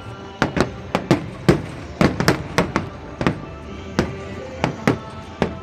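Fireworks bursting in a rapid, irregular string of sharp bangs, more than a dozen in a few seconds.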